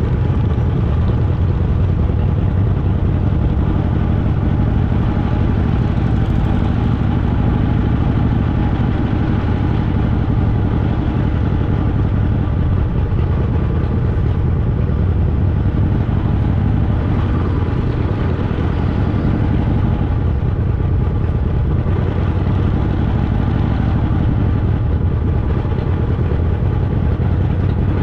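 Harley-Davidson Fat Boy's V-twin engine running steadily at a slow roll, a low rumble that holds even throughout.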